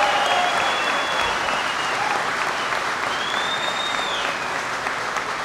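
Audience applauding steadily, the clapping slowly easing off.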